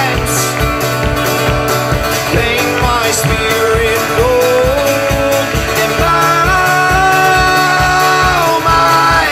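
A man singing, holding some long notes, over a steadily strummed acoustic guitar.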